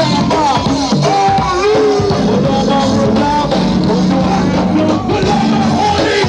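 Live go-go band playing a loud, steady groove: drums, a held bass line and a bending melody line over the top.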